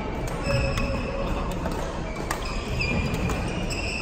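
Badminton rackets striking shuttlecocks: several sharp cracks at uneven intervals, the loudest a little past halfway, over the steady din of a large sports hall, with a few brief high squeaks like shoes on the court floor.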